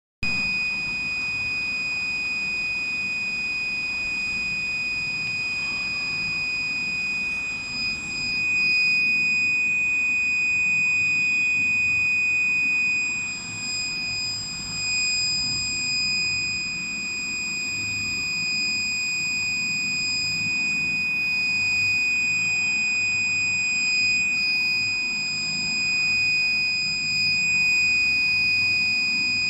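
Piezo buzzer on a Raspberry Pi breadboard circuit sounding one steady, high-pitched electronic tone without a break.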